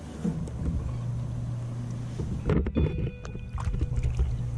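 Clicks and knocks of fishing tackle being handled in a plastic sit-on-top kayak, loudest in a quick cluster about two and a half seconds in, over a steady low engine hum.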